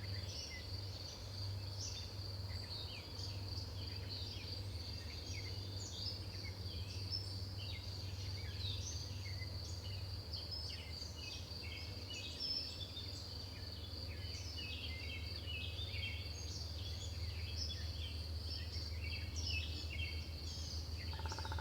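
A steady, high, pulsing insect trill, like crickets, with many short bird chirps scattered over it and a low steady rumble underneath.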